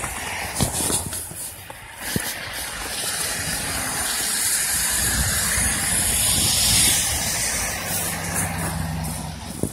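A car drives past on a wet, slushy road, its tyres hissing through the slush over the engine, loudest about seven seconds in; near the end a steady engine hum comes through.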